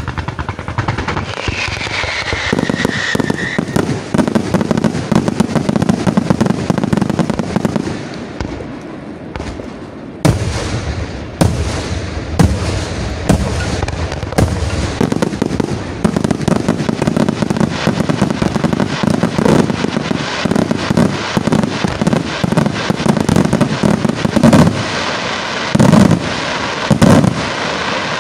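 Professional fireworks display: aerial shells and comets firing and bursting in dense crackling volleys, with a falling whistle about two seconds in. After a brief lull around eight seconds in, a sharp bang restarts the volleys, and the loudest single bangs come near the end.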